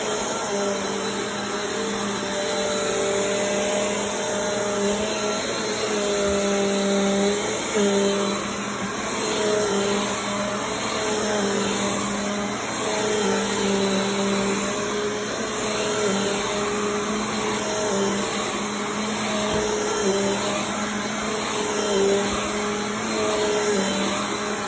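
Vacuum cleaner running steadily: a constant hiss under a motor hum whose pitch wavers slightly now and then.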